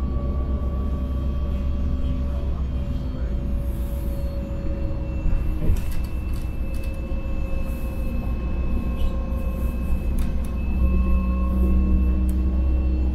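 Inside the cabin of a LiAZ-5292.65 diesel city bus under way: a steady low rumble of engine and road with faint whining tones above it, and a few short rattles of the body and fittings.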